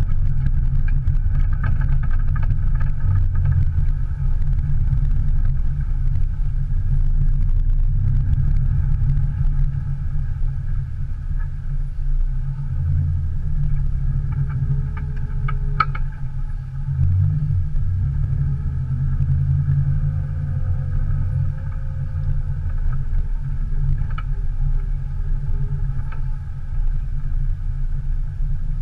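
Subaru Impreza's 1.8-litre naturally aspirated flat-four engine running, heard inside the stripped, caged cabin. It is louder for the first several seconds, then settles to a quieter, steadier note, with a few sharp clicks about sixteen seconds in.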